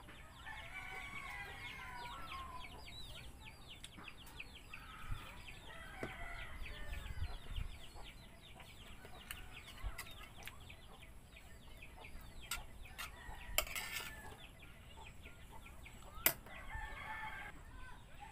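Rooster crowing a few times, with chickens clucking, over a constant background of fine high chirps. Two sharp clicks stand out late on, the second the loudest sound.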